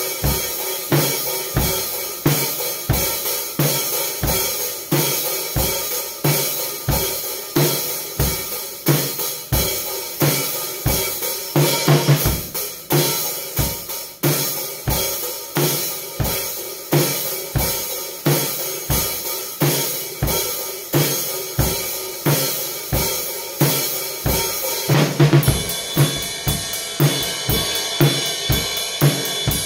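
Drum kit played in a steady groove, with kick drum, snare, hi-hat and cymbal strikes on an even beat. A quick burst of strokes comes about twelve seconds in. From about twenty-five seconds in, a brighter, ringing cymbal wash rides over the beat.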